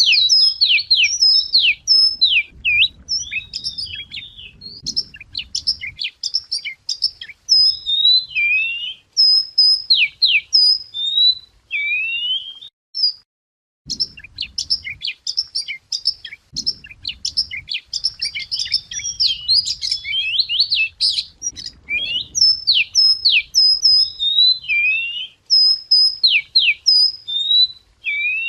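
Wagtail (chìa vôi) singing: a fast, varied song of chirps and sweeping whistled notes, with a brief pause about halfway through.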